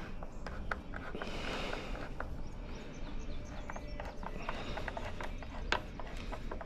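Scattered light clicks and knocks of hand tools and metal parts being handled during mechanical work, with one sharper knock near the end.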